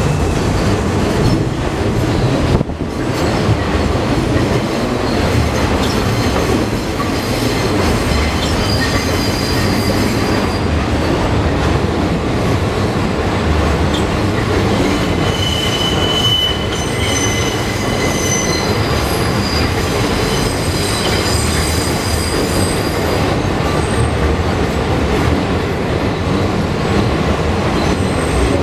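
R142 subway train running into the station on elevated track, with a steady rumble of wheels on the rails. Its wheels squeal in thin high tones from about a third of the way in until near the end.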